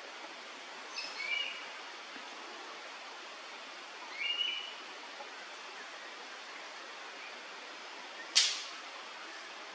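Banded bay cuckoo giving two short whistled calls about three seconds apart, each a quick rising note into a held higher one, over a steady hiss. A single sharp knock near the end is the loudest sound.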